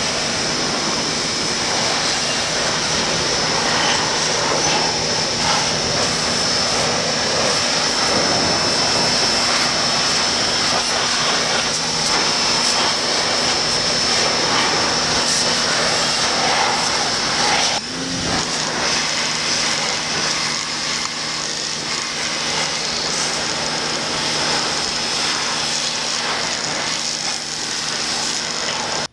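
Portland 1750 PSI corded electric pressure washer running and spraying water, a steady loud rush with a high whine and a low motor hum. About two-thirds of the way through it drops off briefly and the motor spins back up as the spray resumes.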